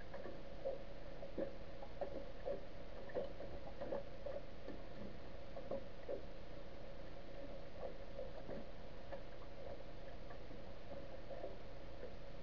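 Underwater sound of the seabed: irregular soft clicks and ticks over a steady hum, several a second at first, thinning out after about six seconds.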